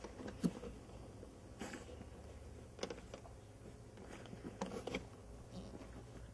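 Fleece blanket rustling, with a few brief soft knocks, as a Chihuahua puppy burrows and wrestles in it. The sounds come in scattered short bursts, several close together a little before the 5-second mark.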